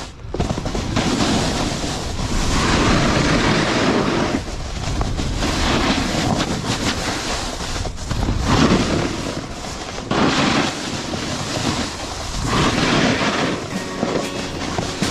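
Wind rushing over the microphone with a snowboard scraping across snow, swelling and easing every second or two.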